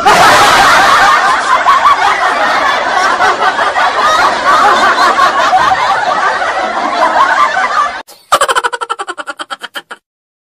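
Laugh-track sound effect: a crowd of people laughing together, loud and dense, cutting off suddenly after about eight seconds. It is followed by a quick run of ticks, several a second, that fade away.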